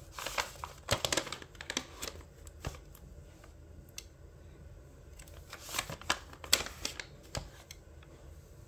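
Paper pages of a handmade notebook being turned by hand, rustling and crinkling in a few short bursts with quieter gaps between.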